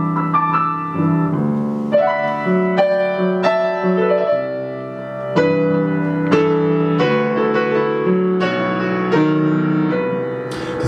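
Solo piano instrumental passage, a melody of struck notes over chords, with no singing.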